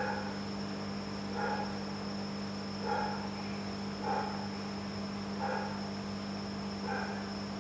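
Steady electrical hum of running aquarium equipment with a faint high whine, and a soft sound repeating about every one and a half seconds, six times.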